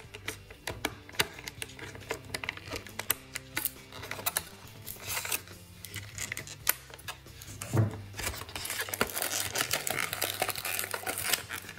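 Clear plastic blister packaging and a plastic bag crackling and clicking as they are handled, turning to denser crinkling about two thirds of the way in. Faint background music plays underneath.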